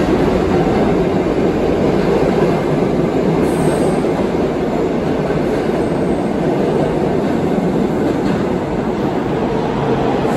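New York City subway 1 train of R62A cars running along the platform and pulling out of the station, a loud, steady rumble of wheels on rails that eases slightly near the end.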